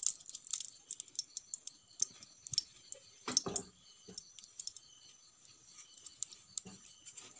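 A lump of butter melting in a hot nonstick wok, crackling with scattered small pops and clicks, one sharper pop about three and a half seconds in.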